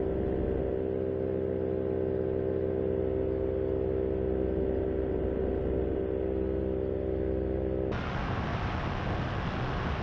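Paramotor's two-stroke engine and repaired propeller running at a steady cruise power in flight, a constant droning hum. About 8 seconds in, the sound switches abruptly to a rougher, noisier rush of engine and wind.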